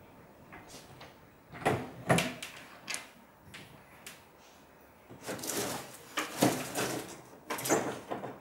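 Wardrobe doors being pulled open, with several sharp knocks and bumps, then denser clattering and rustling near the end as things inside the wardrobe are moved about.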